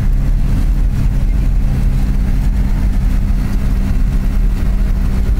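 Vehicle engine and road noise while driving at a steady speed: a constant low drone with an even hum that does not rise or fall.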